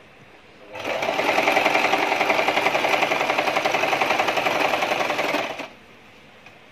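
Electric domestic sewing machine running at a fast, steady stitching rate as it sews a seam through fabric. It starts about a second in and stops abruptly about a second before the end.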